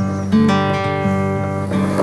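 Background music: acoustic guitar strumming chords, with a new chord struck about a third of a second in.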